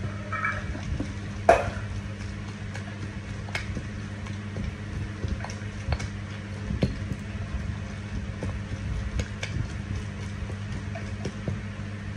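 Stone mortar and pestle pounding a moist chili paste: irregular dull knocks, one sharper knock about a second and a half in, over a steady low hum.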